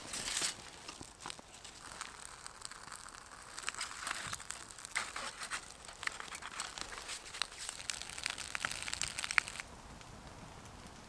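Birch bark and kindling crackling as they catch fire, with rustling as the burning bark is handled and fed into a small folding metal wood stove. Many sharp crackles and snaps; they stop abruptly near the end.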